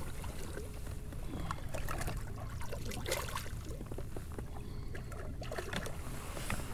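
Water splashing and trickling, with scattered clicks and knocks of handling in a kayak, as a flathead catfish is let back into the river.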